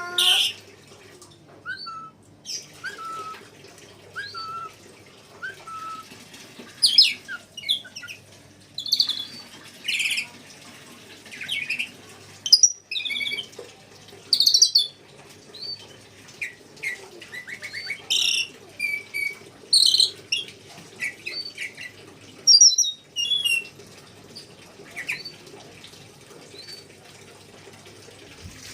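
Red lory calling, with a long string of short, sharp chirps and whistled notes that come irregularly, some in quick runs and some alone.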